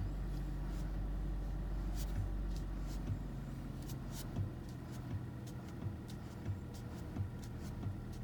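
Car steering knocking: a string of irregular light knocks from about two seconds in, over the steady low hum of the idling engine. The knock persists despite a replaced steering column.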